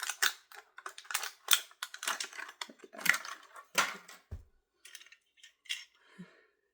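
Plastic toy packaging being handled and unwrapped: quick irregular crinkling and crackling, dense for the first four seconds or so, then thinning out to a few scattered rustles.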